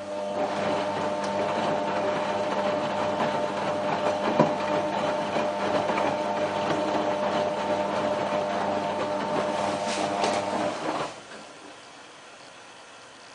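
Whirlpool AWM4066 washing machine running with a steady motor hum and a rushing, rattling layer over it, which stops suddenly about eleven seconds in.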